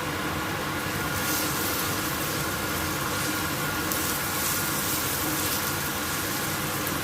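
Chopped onions sizzling in hot cooking oil in a pot, the frying noise swelling briefly about a second in and again around four seconds in, over a steady hum.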